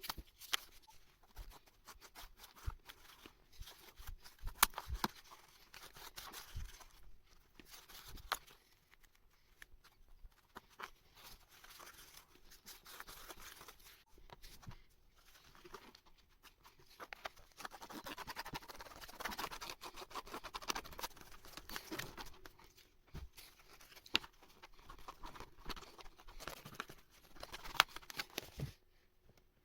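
Hand work on sofa upholstery: scattered sharp clicks and taps, with stretches of scraping and rustling of fabric or leather.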